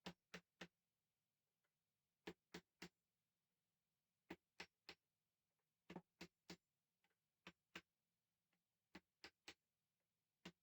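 Sharp taps or clicks in quick groups, mostly three at a time, about a third of a second apart, with a new group roughly every one and a half seconds.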